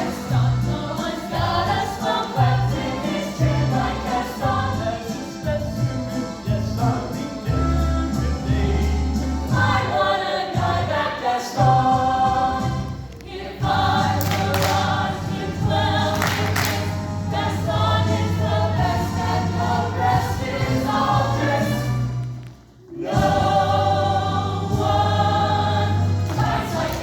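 A high school choir singing a medley with instrumental accompaniment that holds sustained bass notes. The music breaks off briefly about three-quarters of the way through, then picks up again.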